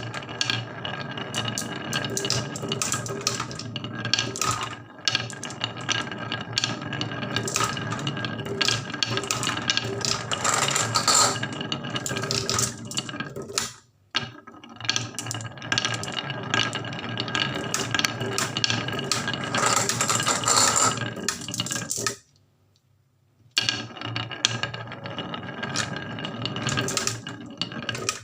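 Marbles rolling and clattering down a wooden HABA marble run, a dense run of clicks and rattles, cut off twice by short silences.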